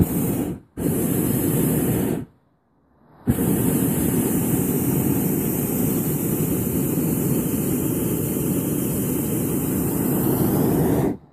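Hot air balloon propane burner firing in three blasts: a short one, a second of about a second and a half, then after a near-silent pause a long blast of about eight seconds that cuts off sharply as the valve is shut.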